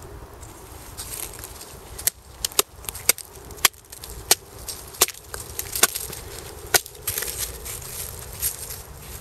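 KA-BAR USN Mark 1 knife chopping into a branch: about nine sharp wooden knocks at uneven intervals of half a second to a second, starting about two seconds in, with scraping and rustling before and after.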